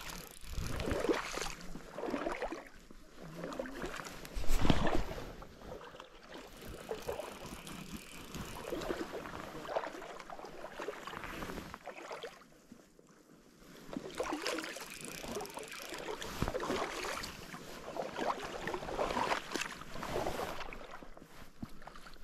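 Hooked brown trout splashing and thrashing at the surface of shallow water as it is played on a fly rod, in irregular bursts with one loud splash about four and a half seconds in and a short lull near the middle.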